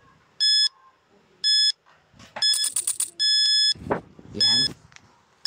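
Piso WiFi coin-operated vending machine beeping about once a second, short high electronic beeps prompting for coins. About two and a half seconds in, a coin rattles in, and a longer beep follows as the 5-peso coin is credited.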